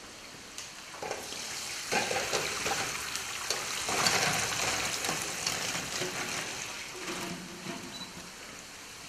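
Liquid pouring and splashing from a large aluminium pan through a metal mesh sieve into a bowl, with pastries sliding out along with it. It builds about two seconds in, is loudest around the middle, and tails off as the pan empties.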